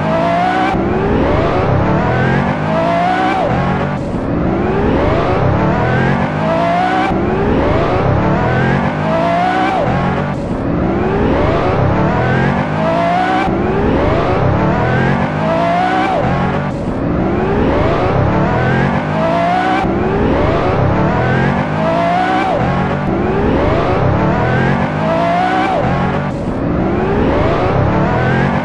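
Sports car engine accelerating hard through the gears again and again: each rise in pitch is cut off by a sudden drop at the gear change, about every one and a half to two seconds.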